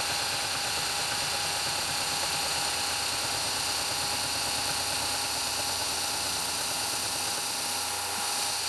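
Milling machine spindle running steadily, driving a disc-type gear cutter during gear cutting; a constant whir with a high hiss.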